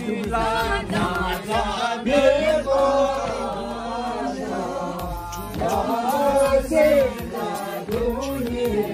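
A group of voices singing a chant-like song together, as for a circle dance around a bonfire.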